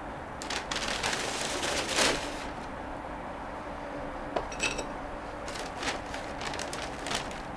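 Scraping and rustling as a terracotta flower pot and potting soil are handled on newspaper while repotting, loudest about two seconds in, followed by scattered light knocks and taps.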